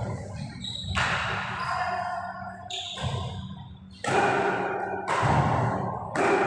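Badminton rackets striking the shuttlecock during a doubles rally, about five sharp hits roughly a second apart, each echoing in a large hall.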